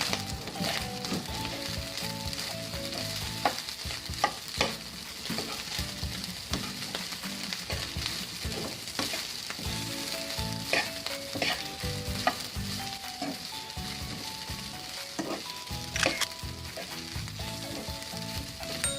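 Fried rice sizzling in an oiled pan while it is stir-fried, with a steady hiss and repeated scrapes and knocks of a spatula against the pan. A few knocks stand out, twice in quick succession about four seconds in and again near the end. Music plays quietly underneath.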